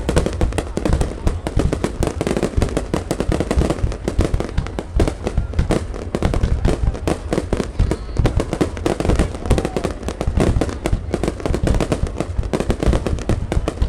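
A fireworks display at full intensity: a dense, unbroken barrage of bursts and bangs, many a second, with no pause.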